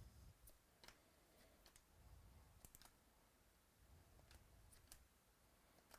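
Near silence with faint, scattered light clicks, about a dozen of them at uneven spacing.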